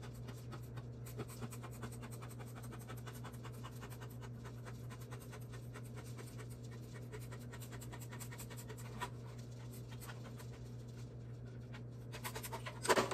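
Curved RC body scissors snipping along the side of a painted polycarbonate RC car body in small tip-only cuts: a run of faint, quick clicks and crackles over a steady low hum, with a louder rustle of the body being handled near the end.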